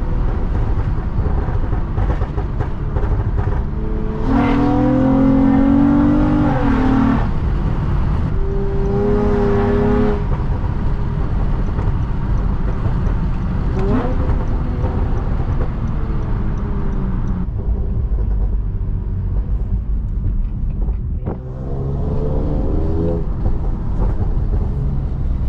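Honda car engine accelerating hard through the gears in sport mode, heard through an open window. The engine pitch climbs and drops back several times as it is revved up and shifted: a long pull about four seconds in, shorter ones around nine and fourteen seconds, and another near the end. A steady low rumble of road and wind noise runs under it.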